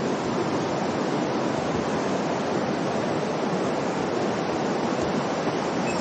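Steady rush of a mountain river flowing over rocks.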